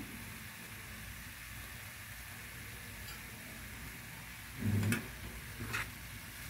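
Diced pork, liver and cut green beans sizzling steadily in a nonstick frying pan. Near the end there is a dull bump and a couple of sharp knocks of a spatula on the pan as the food is stirred.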